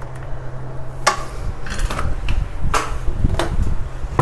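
Scattered knocks and clatters of tools being handled against a wooden kitchen cabinet, about seven in four seconds, over a steady low hum.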